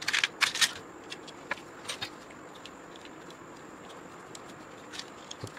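Handling clicks and light knocks of a 3D-printed plastic hot-end holder and an E3D V6 hot end being fitted together by hand. A quick cluster of sharp clicks comes in the first second, then single light clicks follow now and then, over a faint steady high whine.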